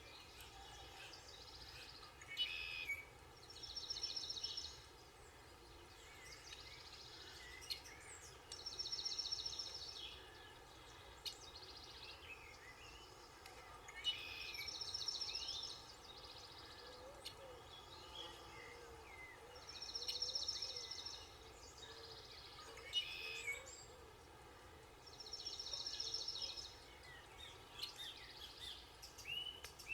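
Songbirds singing faintly: one bird repeats a short, high trilled phrase about every five or six seconds, with scattered chirps from other birds between.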